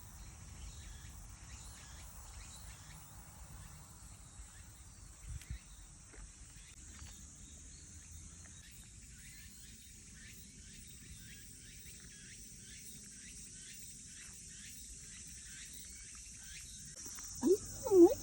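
Insects chirping: a steady high-pitched hiss with a regular chirp repeating about twice a second. Near the end, two short, loud sounds with gliding pitch break in.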